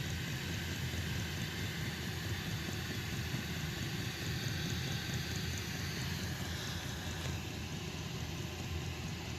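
An 8 kW diesel heater running steadily on a mix of diesel and used oil, its burner and fan making a continuous rushing noise.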